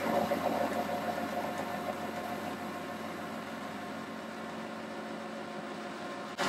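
Boxford lathe running, taking a light facing cut across the end of a metal bar held in the chuck: a steady mechanical hum and hiss that slowly grows quieter, changing abruptly just before the end.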